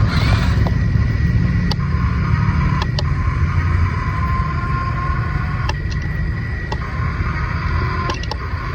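Small electric motors of a remote-control toy construction machine running with a steady whine over a low rumble, with a few scattered clicks.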